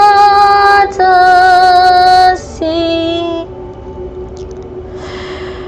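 A high voice singing in tongues, holding three long wordless notes that each step lower in pitch, over a soft steady drone. The singing stops about three and a half seconds in, leaving only the faint drone.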